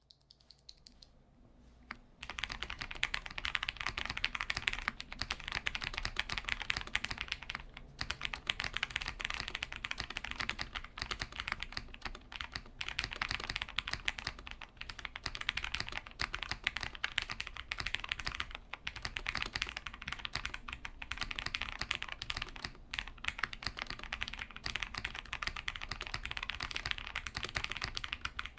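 Fast, continuous typing on a KBD8x MKII mechanical keyboard with lubed and filmed Gateron Milk Black linear switches, a polycarbonate plate and PBT keycaps. It starts about two seconds in, with brief pauses now and then.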